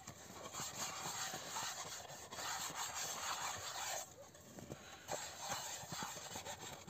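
Snow crunching and scraping as a bare hand and the edge of a wooden cutting board sweep and pack it, with many small crackles; a little quieter from about four seconds in.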